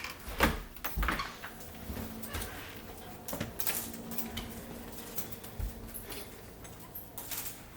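Scattered clicks and light knocks of doorknob hardware being handled and fitted on a door.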